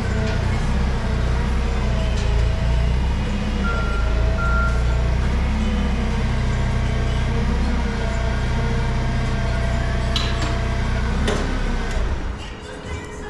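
Ford F-350 pickup truck driving: a steady low drone of engine and road noise. There is a short knock about eleven seconds in, and the drone drops off soon after.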